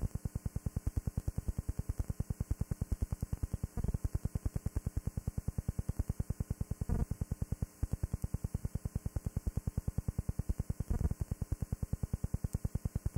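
Fast, even electrical pulsing buzz, like interference or hum on the soundtrack, with a few brief louder bumps about four, seven and eleven seconds in.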